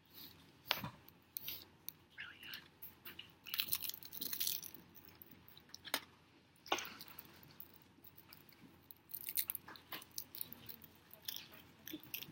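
Seaweed being bitten and chewed, with irregular crisp crunching and crackling and a few sharp snaps.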